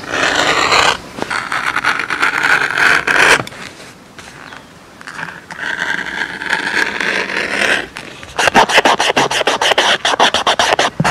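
Fingertips rubbing over the leather of a wet-molded leather coaster, a scratchy rubbing in four passes with short pauses between them, the last one made of quick repeated strokes.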